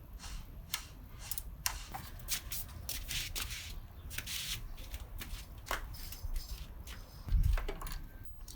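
Hands working on moped parts with tools: a run of small metal clicks and scrapes, with one low thump about seven seconds in.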